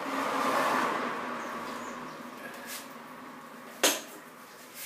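Cloth rubbing over an alloy wheel rim, a steady rushing scrub that is loudest in the first second and then fades, with one sharp knock near the end as the tyred wheel is handled.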